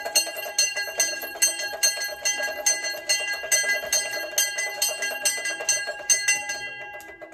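Temple bell rung by hand in quick, even strokes, about two a second, each ring running into the next; the ringing fades out just before the end.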